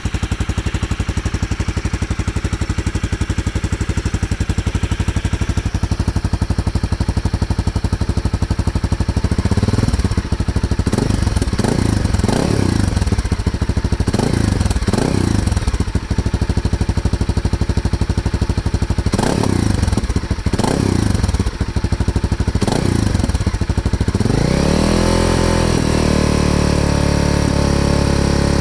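A 250 rally motorcycle's engine running through a street-legal Yoshimura RS4 exhaust. It idles at first, then is blipped sharply about a dozen times, each rev rising and falling quickly. Near the end it is revved up and held at a steady higher speed.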